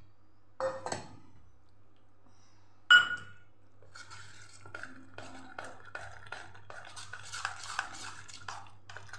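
A metal spoon clinks against a stainless steel bowl a few times, with one sharp ringing clink about three seconds in. After that comes quick, steady stirring, the spoon scraping the bowl as it works wet dhokla batter.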